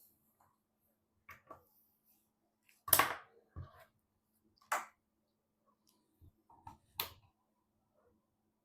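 Sharp clicks and knocks of computer parts being handled and fitted by hand. Three are louder, a second or two apart, with softer taps in between.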